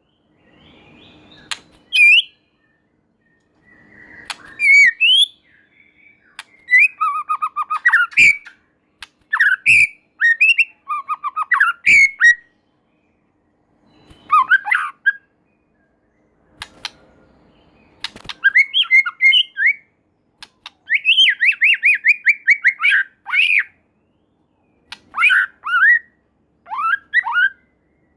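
White-rumped shama singing in loud, varied phrases of whistles, sliding notes and rapid trills, with short pauses between bursts.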